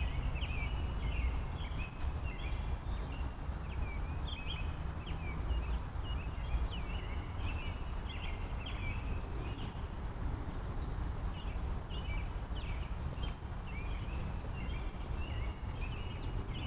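Birds chirping in the trees: a constant chatter of short chirps, joined about eleven seconds in by repeated high, falling notes from another bird, over a steady low rumble.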